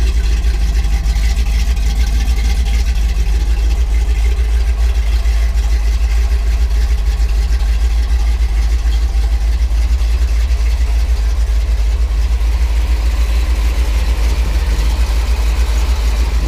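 1984 Chevrolet Silverado's 5.7-litre (350) small-block V8 idling steadily through Hooker headers and a Flowmaster-type exhaust, with a competition cam that is hitting pretty good.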